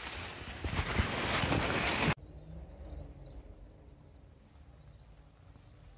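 Maize leaves rustling and scraping against the phone and its microphone as it is carried through the corn. This stops abruptly about two seconds in. What follows is a quiet field ambience with faint, repeated high chirps.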